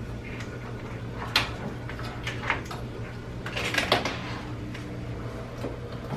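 A cat bumping and brushing against the camera on a kitchen counter: a few light knocks and rustles, the loudest cluster about four seconds in, over a steady low hum.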